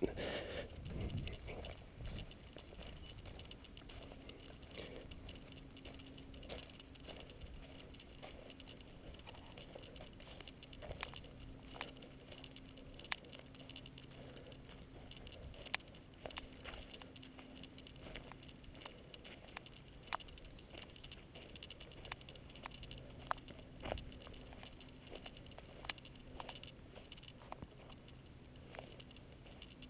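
Faint footsteps of a hiker walking along a dirt trail: soft irregular crunches and light clicks, about one a second, over a low steady hum.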